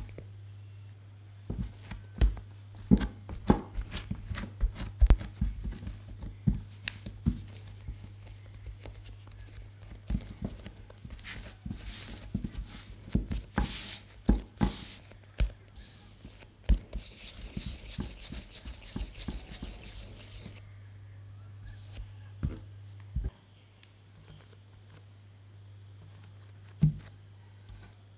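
Hands working soft bread dough on a silicone baking mat, dividing and shaping it into balls: soft taps, pats and the rub of dough against palms and mat. Past the middle comes a few seconds of fine, rapid rubbing, and near the end only a few isolated soft knocks.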